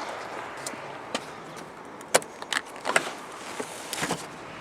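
Scattered clicks and knocks of a station wagon's rear seat backs and their latches being folded down, several sharp clacks about two, three and four seconds in.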